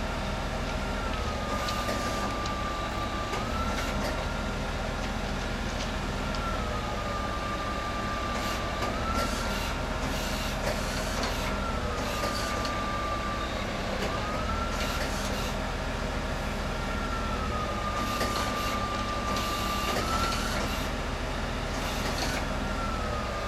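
Multiple tie tamper working on the track: its engine runs with a steady drone, with short bursts of hiss every few seconds. Over it a warning tone sounds without a break, sliding up and down between two close pitches and holding each for two or three seconds.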